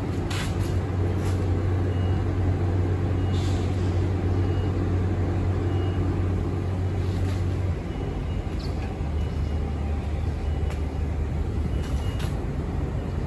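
Queensland Rail SMU 200 electric multiple unit standing at the platform with its doors open, its onboard equipment humming steadily. The hum drops lower and quieter about eight seconds in, and a few short sharp sounds come through over it.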